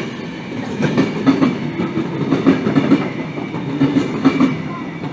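Passenger coaches of an express train rolling past at speed, their wheels clattering over the rail joints in repeated groups of sharp knocks.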